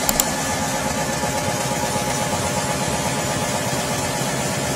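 Open-type Dorin 30 HP reciprocating refrigeration compressor, belt-driven by an electric motor, running steadily. A couple of faint clicks sound right at the start.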